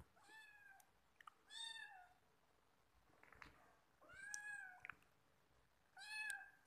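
A cat meowing four times, each meow short and arching in pitch, spread over several seconds with pauses between.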